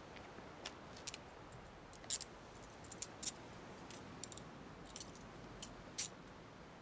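Metal handcuffs being snapped onto a person's wrists: a faint string of short, sharp, irregular metallic clicks as the cuffs ratchet closed.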